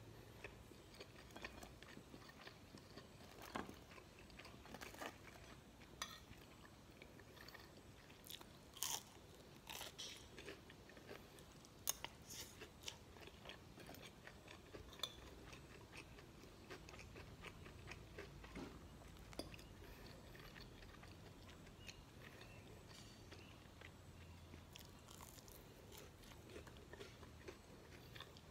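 Faint chewing of fried rice and chicken nuggets, with scattered small clicks and taps of a spoon and fork against the plate.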